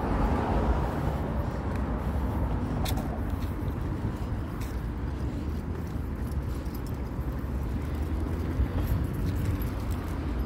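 Street traffic noise at a city intersection: a steady hum of cars running and passing.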